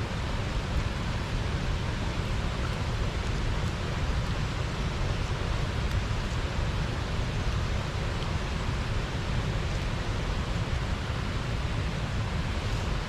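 Water pouring over a small river weir, a steady unbroken rush with a deep low rumble beneath.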